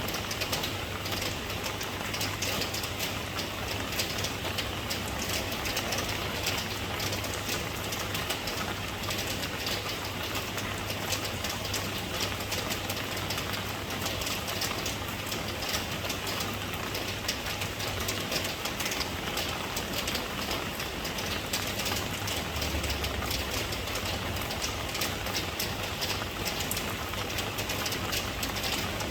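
Steady rain: a dense, even patter of drops with a low steady rumble underneath.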